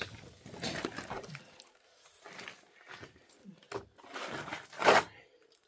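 Pointed trowel scraping and spreading plaster on a concrete-block wall in a few separate strokes, the loudest near the end.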